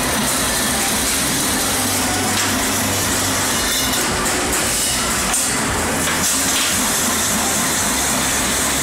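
Steady machine noise, an even hiss with a low hum, from a gasket-rolling machine for round ventilation ducts and the production machinery around it.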